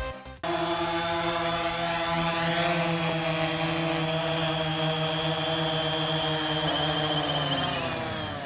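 DJI Phantom 3 Standard quadcopter hovering low, its four motors and propellers giving a steady buzzing whine with a high overtone. The pitch sags near the end.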